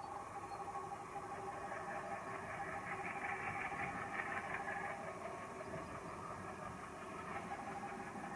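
Twin ALCo diesel-electric locomotives heard from a distance at the head of a receding passenger train, working under throttle as they pull away. A steady engine rumble with a faint steady whine over it.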